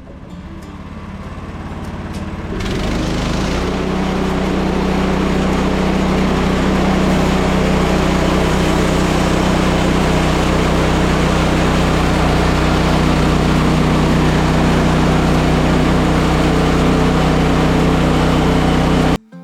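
Portable bandsaw sawmill's gas engine throttling up, then the band blade cutting steadily through a big log from about two and a half seconds in. The sound stops abruptly near the end.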